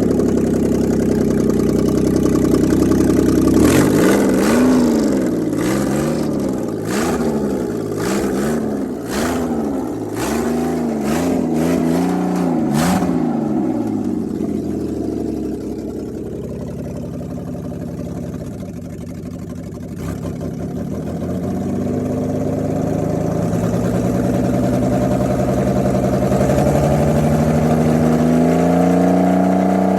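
A 2008 Ford Taurus X's 3.5-litre V6 running just after start-up. It holds a fast idle, is revved up and down about once a second with sharp knocks during the revs, settles lower, then is brought up in a slow, steady rise. The seller lists this engine as bad.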